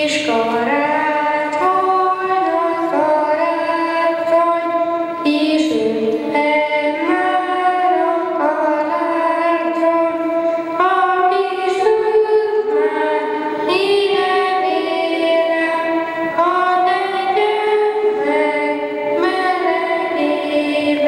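Children singing a song through handheld microphones, one held note after another, with no pause.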